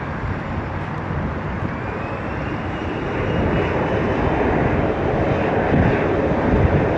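Boeing 767 twinjet approaching to land, its turbofan engine noise growing steadily louder, with a faint whine rising in pitch a couple of seconds in.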